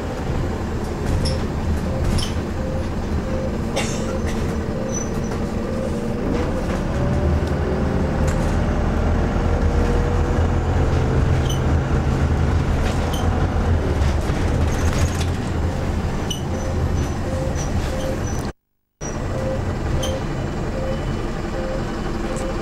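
Bus engine running as heard from inside the passenger cabin, a steady low hum whose pitch rises about six seconds in as the bus pulls away, with occasional clicks and rattles. The sound drops out for a moment near the end.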